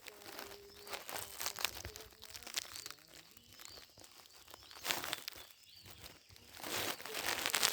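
Dry nest material and leaves rustling and crackling as the nest is handled, with scattered sharp clicks and a louder burst of rustling near the end.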